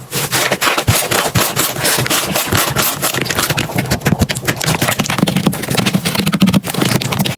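Slime being squeezed and worked by hand: a dense, unbroken run of sticky crackles and small pops.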